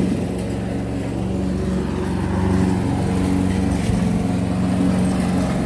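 Lawnmower engine running steadily at a constant speed, a loud, even hum.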